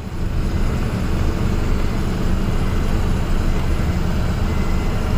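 Truck running along the road: a steady low engine drone mixed with road noise.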